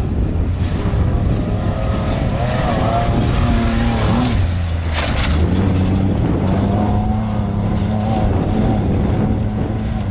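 Off-road race vehicle engine running hard, its pitch rising and falling as it revs, with a short rush of noise about five seconds in.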